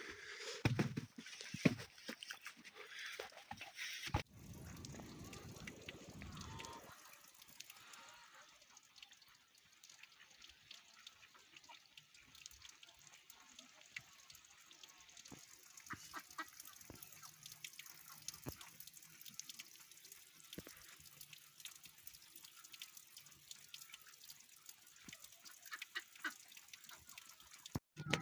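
Ducks quacking now and then, short separate calls over a quiet farmyard, with a few seconds of low rushing noise about four seconds in.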